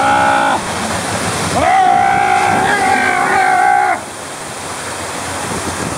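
A man yelling as he rides down an enclosed water-slide tube: a short shout at the start, then a long held yell from about one and a half seconds in that cuts off at about four seconds. Under it, a steady rush of water and air in the tube.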